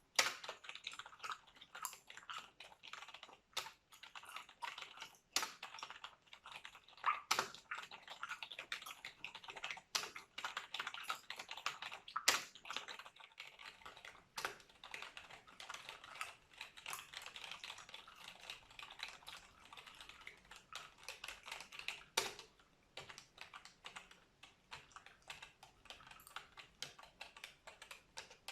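Close-up computer keyboard typing: a fast, continuous patter of key clicks, with a few louder single keystrokes standing out now and then.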